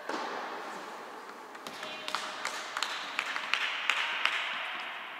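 Tennis balls and rackets in a large indoor tennis hall. A knock right at the start rings out in the hall's echo, then a scatter of sharp taps follows from about two to four seconds in.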